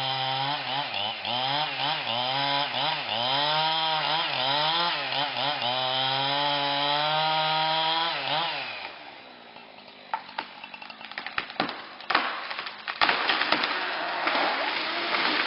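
Chainsaw cutting through a tree trunk, its engine pitch rising and falling with the throttle, then winding down and stopping about nine seconds in. After a short lull comes a run of sharp cracks and snaps of breaking wood, loudest about two-thirds of the way in, as the notched tree gives way and collapses.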